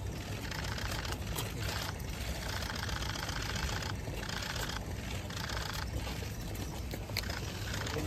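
City street ambience: a steady low engine rumble of traffic.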